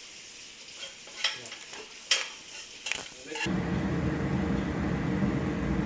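Food sizzling in a frying pan while a utensil stirs it, with a few sharp clinks against the pan. About three and a half seconds in, the sound cuts suddenly to a louder steady low rumble.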